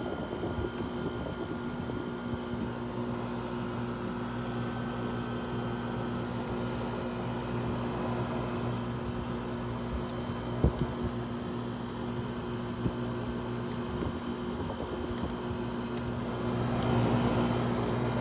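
Haier 5,200 BTU air conditioner running: a steady compressor hum under the constant rush of its fan. A sharp knock comes about ten and a half seconds in and a smaller one a couple of seconds later, and the airflow grows louder near the end.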